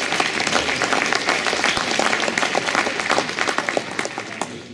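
Audience applauding: a dense, even patter of many hands clapping, fading out near the end.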